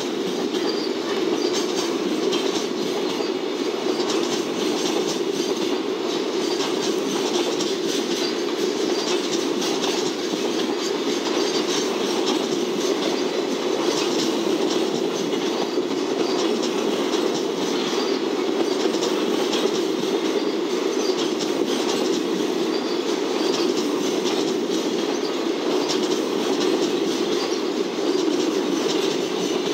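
A freight train's loaded container flatcars rolling past at steady speed: continuous wheel-on-rail noise with scattered clicks from the wheels passing over the track.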